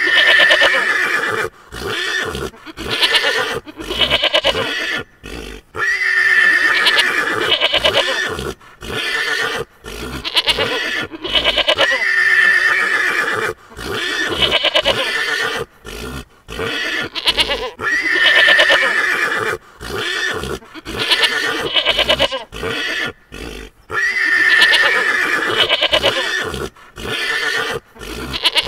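Horses neighing and whinnying: loud, quavering calls that come back in the same pattern about every six seconds, with abrupt cuts between them like a looped sound-effect track.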